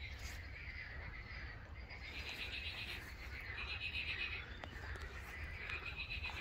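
A faint chorus of frogs croaking in pulsing bursts over a low steady rumble.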